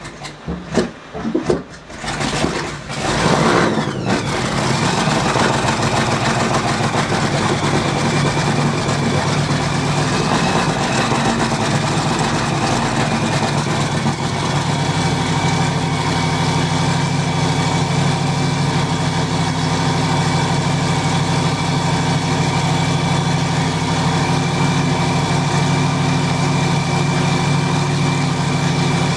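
A racing powerboat's engine starting: a few irregular sputters and bursts over the first four seconds, then it catches and idles steadily.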